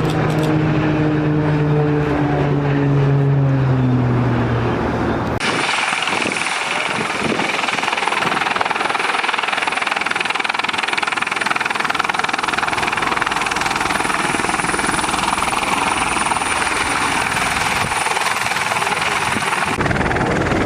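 Military display aircraft flying over. First an engine note falls slowly in pitch as one passes. Then, after an abrupt cut, there is a steady rushing engine noise with a thin high whine, ending suddenly near the end.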